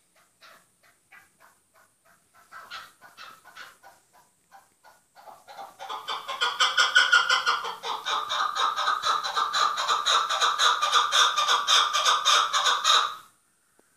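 Chukar partridge calling: a run of repeated clucking notes that starts faint and sparse, quickens and swells a little before halfway into a loud, fast, rhythmic chukar call, then stops suddenly near the end.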